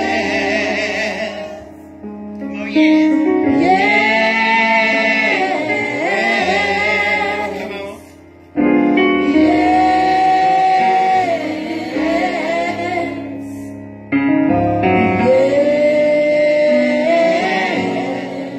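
Small group of women singing gospel together into microphones, holding long notes in phrases that break off briefly three times.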